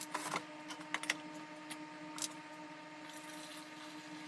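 A few sharp plastic clicks and knocks as a bottle is opened and handled, then used rust-wash solution poured from a plastic tub through a funnel into the bottle, a faint trickle of liquid.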